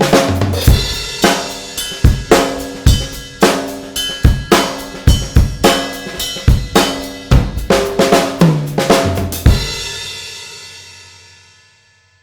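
Drum kit groove built around a DW Design Series 14x6.5 nickel-over-brass snare, played unmuffled, so its sharp crack rings with overtones over kick drum, hi-hat and cymbals. The beat stops with a last hit near the end, and the drums and cymbals ring out and fade away.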